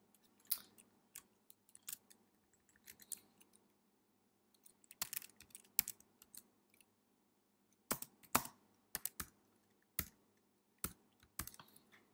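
Computer keyboard being typed on: separate key clicks in short irregular bursts with pauses between them.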